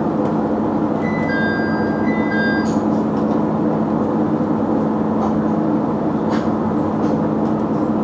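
KiHa 100 diesel railcar's engine idling steadily while the train stands at the platform. About a second in, a two-note electronic chime sounds twice in a row.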